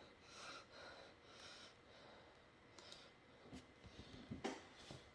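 Near silence: faint room tone with soft breath-like noises and a few small clicks in the second half.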